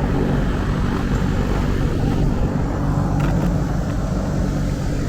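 Electric fan running with a steady drone, with a couple of faint clicks about three seconds in.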